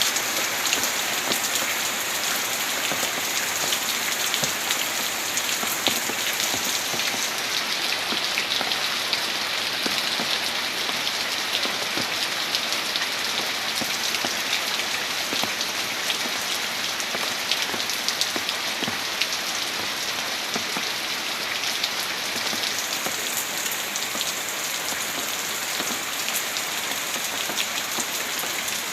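Heavy rain falling steadily, countless drops pattering on surfaces.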